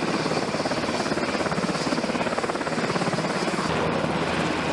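Helicopter rotor sound, the blades chopping at a fast, steady rate. A low hum joins in about three and a half seconds in.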